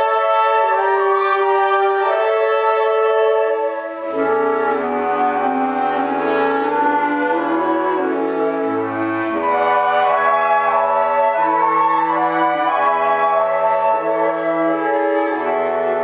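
Woodwind ensemble of flutes and clarinets, with a bass clarinet, playing music in sustained, changing chords. A low bass line comes in about four seconds in.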